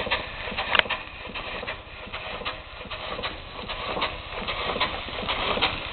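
Fowler 3-inch scale model traction engine running on steam, its exhaust beating in a steady, slightly uneven chuff about three times a second under a faint hiss, with one sharper click about a second in. The engine is newly steamed, and its builders say the valve timing is a bit out.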